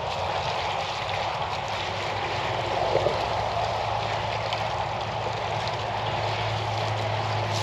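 Water poured steadily into a fence-post hole packed with dry concrete mix, with an engine humming underneath that grows a little stronger about halfway through.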